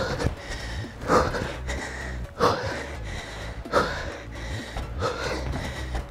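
A man breathing out hard, one short forceful breath about every 1.3 seconds, in time with each rep of lunges during intense exercise.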